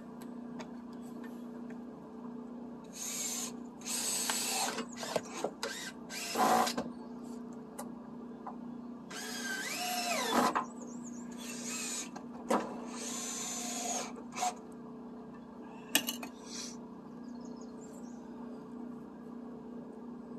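Power drill driving screws into deck framing lumber, run in about half a dozen short trigger bursts, its motor whine spinning up and down. A steady low hum runs underneath, and there are a few sharp knocks later on.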